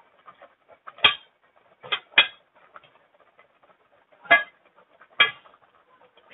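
Metal ladle clinking against a cooking pot as boiled chicken pieces are scooped out of the stock, about five sharp clinks spread over several seconds, two of them close together about two seconds in.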